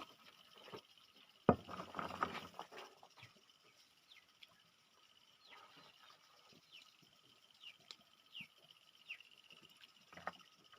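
Peanut shells cracking open while eating: a sharp snap about a second and a half in, then a second or so of crackling and crunching, followed by small scattered clicks.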